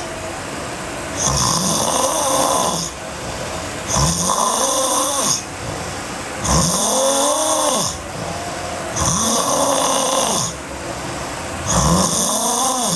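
A sleeping girl snoring hard: about five snores, one every two and a half seconds or so, each a humming tone that rises and then falls in pitch.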